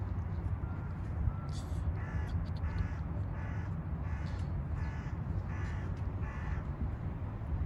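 A bird, crow-like, giving about seven short harsh caws in an even series, roughly one and a half a second, over a steady low rumble.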